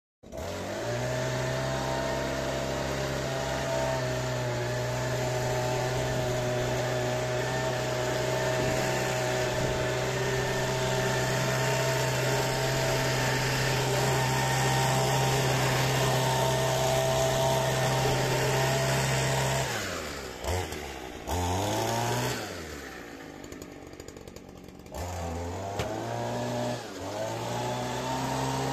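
Petrol leaf blower's engine running at a steady high speed. About two-thirds of the way in the throttle is let off: the engine drops, blips up and down a couple of times and runs slower for a few seconds, then picks back up to speed near the end.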